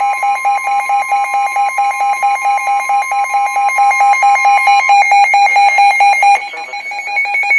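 Emergency alert attention tones for a severe thunderstorm warning. A loud, rapid, even beeping of about five beeps a second sounds over a steady tone; the steady tone stops about two-thirds of the way through, and the beeping weakens near the end.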